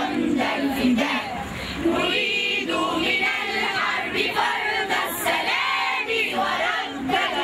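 A children's choir singing together into microphones.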